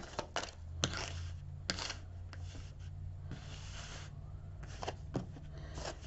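Tarot cards being handled and dealt onto a tray: scattered light clicks and taps, with a soft rustle of cards sliding for a moment in the middle.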